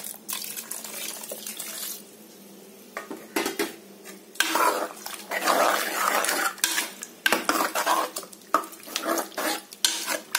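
Steel ladle stirring thick, wet mashed greens in a metal pot, scraping and clinking against the pot's sides as the drained cooking water is mixed back in. A few light clinks at first, then brisk, continuous stirring from about four seconds in.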